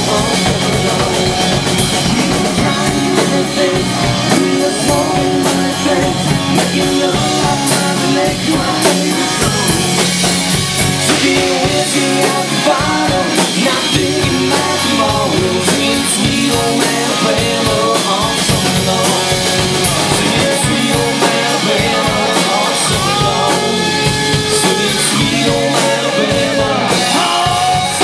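Live rock band playing at full volume: electric guitars over a drum kit, steady through the whole stretch.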